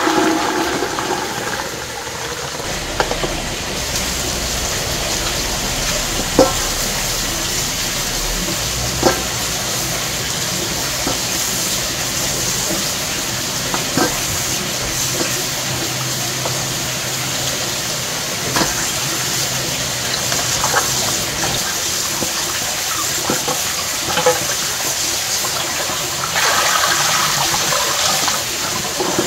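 Water running steadily from a tap into a sink or pot, with a knock now and then from something being handled in it.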